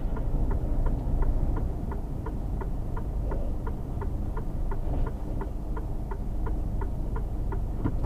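Steady low rumble of a Mercedes Actros truck's 12.8-litre diesel engine heard from inside the cab, with an even, regular ticking about four times a second over it.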